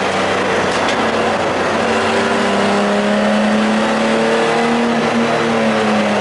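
Race car engine heard from inside the stripped cockpit while lapping a road course, its note climbing slowly as the car accelerates, over steady tyre and wind noise.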